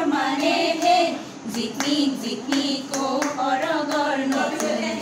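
Women singing a Jeng Bihu song together, with hand claps keeping time.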